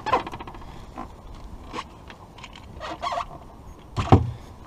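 Knocks and clicks aboard a small open boat while fishing: a quick run of clicks at the start, scattered light knocks and a few squeaks, and one heavy thump about four seconds in.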